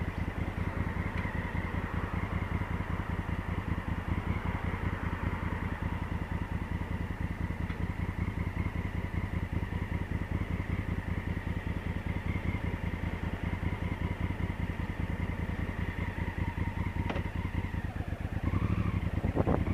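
Honda Africa Twin CRF1000L's parallel-twin engine idling steadily, its note rising slightly near the end.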